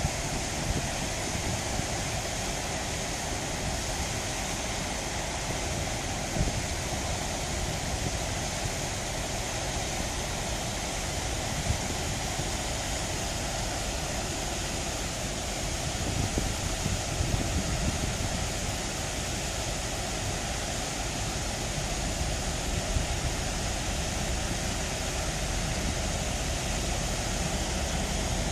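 Steady rushing outdoor noise with a low rumble underneath, growing slightly louder in the second half.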